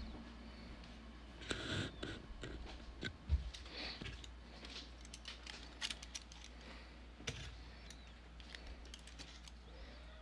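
Faint scattered clicks and taps over a low steady hum, with one louder knock about three seconds in.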